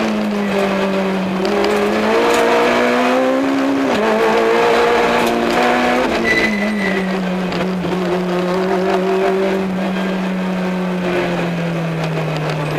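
Peugeot 106 XSI rally car's engine heard from inside the cabin, the revs climbing, dropping through a gear change about four seconds in and climbing again. From about six seconds in it runs lower and steadier, the revs slowly sinking.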